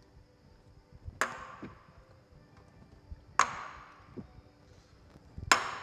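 Shot glasses banged down hard on a wooden bar one after another as each shot is downed: three sharp knocks about two seconds apart, with a short ring after each. The first two are each followed by a lighter knock.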